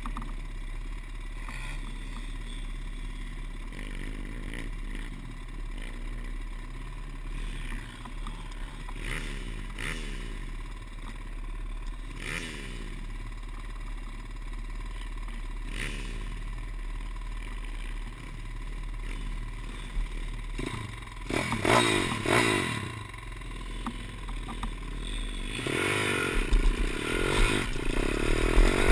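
Pit bike engines: a pit bike some way off revving up and down repeatedly, its pitch rising and falling, over a low steady engine hum. From about 21 seconds in there is clattering, and a few seconds later a nearby pit bike gets louder as it moves off over rough ground.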